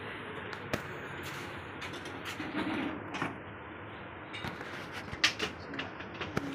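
Irregular metallic clicks and knocks of a wrench working the bolts of a hybrid battery pack's cooling fan as it is being unbolted, with one sharp click a little past five seconds.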